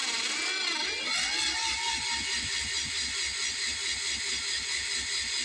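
Drill press starting up and spinning up to a steady whine, driving a homemade small-scale die filer whose sewing-machine cam and linkage push the file rod up and down in a fast, even beat.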